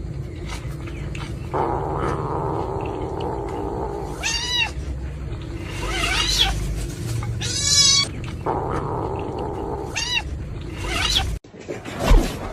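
Domestic cat meowing about four times, each call rising and falling in pitch, with lower drawn-out cat sounds in between. The sound cuts off abruptly near the end.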